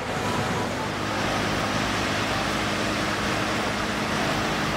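Diesel engine of a MAN concrete mixer truck running at steady revs as the truck drives along the road, with a steady rush of road noise.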